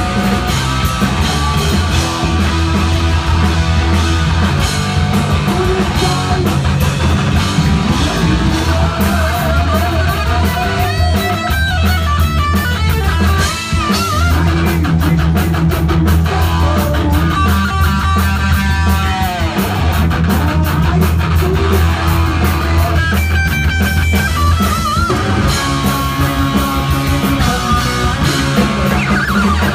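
Heavy metal band playing live: distorted electric guitars over a pounding drum kit, with a higher melodic line that wavers and slides in pitch in several places.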